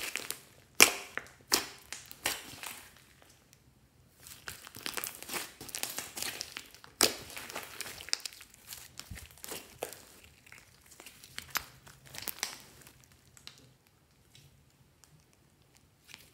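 Hands squishing and stretching a mass of sticky slime full of small mixed-in bits: irregular wet crackling with a handful of sharp pops as it folds and pulls apart, thinning out near the end.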